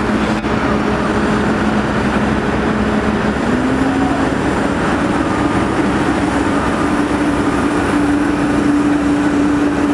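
Caterpillar 385B excavator's diesel engine running steadily under load, its pitch rising a little about a third of the way in and holding at the higher speed.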